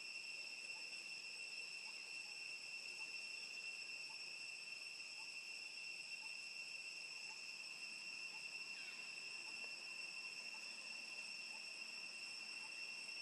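Faint, steady, high-pitched insect drone, one unbroken tone that holds level throughout, with faint small chirps ticking along underneath.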